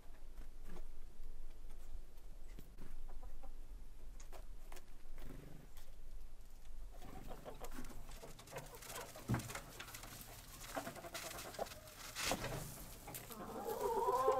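Chickens clucking. The first half holds only faint scattered clicks; the sound grows busier about halfway through, with a run of drawn-out calls near the end.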